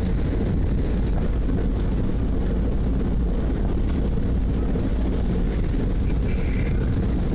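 Wind buffeting the microphone in a steady low rumble, aboard a paddle steamer under way.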